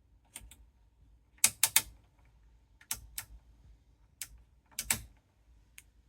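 About a dozen sharp mechanical clicks, irregular and in small clusters of two or three, over a faint low hum.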